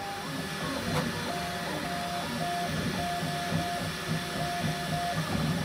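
Bambu Lab X1 Carbon 3D printer printing at high speed: its motors sing in short, repeating tones that jump in pitch as the toolhead darts back and forth, over a low steady hum, with one sharp click about a second in.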